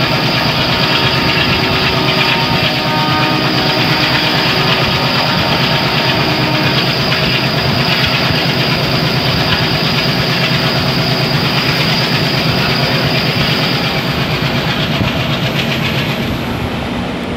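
ALCO diesel locomotive engine chugging in a rapid, even beat as it hauls the train, over the running noise of the coaches on the rails. A steady high turbocharger whistle, the ALCO 'cooker whistle', sounds over it and fades out near the end.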